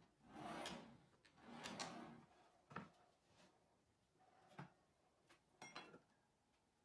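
Faint rolling swish of metal ball-bearing drawer slides as a circular-saw crosscut sled is pushed back and forth twice, with the saw not running. Then a few light clicks and taps of a metal square being set against a board's edge.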